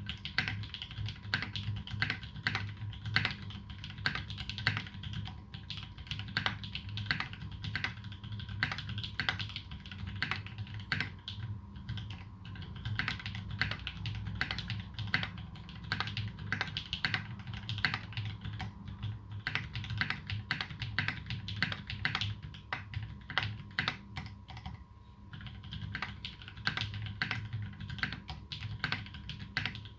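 Continuous fast typing on a Duck Jetfire custom mechanical keyboard with lubed Holy Panda tactile switches (clipped sliders) and GMK keycaps: a dense run of keystroke clicks, easing off briefly about 25 seconds in.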